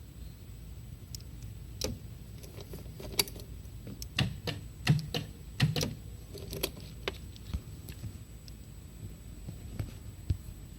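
Yamaha T-Max 500 scooter's parallel-twin engine running with a steady low rumble, the engine knock the owner is showing. Irregular sharp clicks and knocks come through in the middle, several of them loud.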